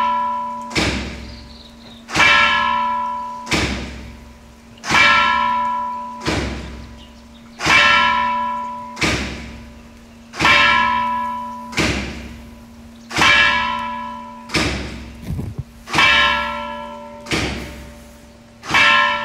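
A bell struck over and over in a steady rhythm: a strong stroke, then a softer one about a second and a half later, the pair repeating about every 2.7 seconds, each stroke ringing out and fading. A steady low hum runs underneath.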